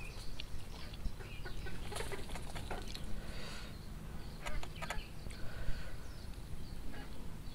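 Bare hand mixing and scooping rice vermicelli, rice and omelette in a stone bowl, with soft wet handling sounds and a few small clicks. Birds call now and then in the background.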